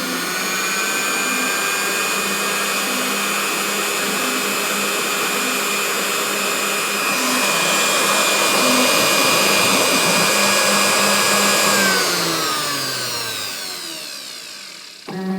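Ozito router motor serving as a CNC spindle running at speed with a high whine: it finishes spinning up at the start, grows a little louder about halfway through, then winds down over about three seconds near the end. A steady-pitched buzz starts just before the end.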